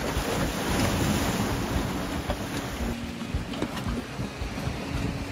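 Strong wind buffeting the microphone over rough lake waves breaking and splashing against a wooden pier.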